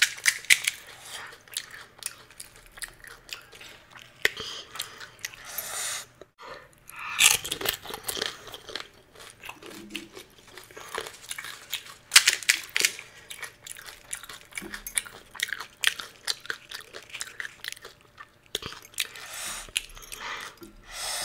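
Pani puri being eaten: the crisp fried puri shells crunch and crackle, followed by wet chewing of the filling, many short crackles in irregular bursts.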